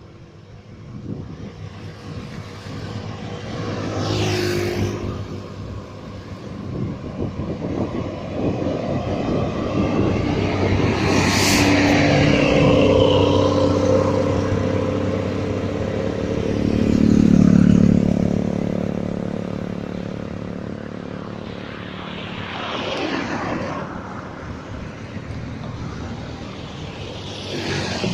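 Road traffic passing, vehicles going by one after another with engine and tyre noise. The loudest pass-by, a heavy engine's low drone, comes about two-thirds of the way in.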